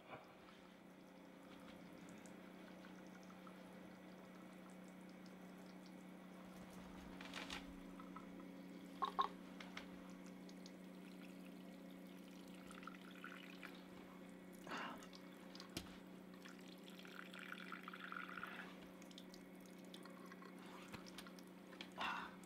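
Tap water running faintly over hands at a sink, with a steady low hum underneath and a few short splashes or knocks.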